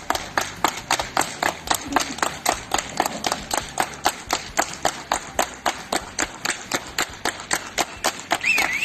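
A small group of firefighters clapping together in a steady rhythm, about four to five claps a second. A brief high warbling tone sounds near the end.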